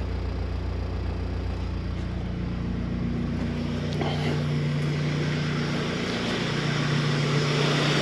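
Swapped-in Honda VTEC four-cylinder engine idling steadily just after a cold start, warming up.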